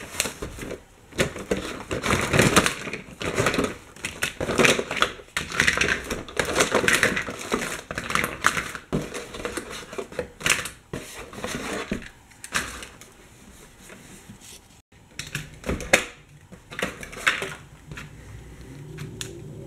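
A toy racetrack set being unpacked from its box, with plastic track pieces and packaging handled: irregular crinkling, scraping and clacking, busy for the first twelve seconds or so, then sparser clicks.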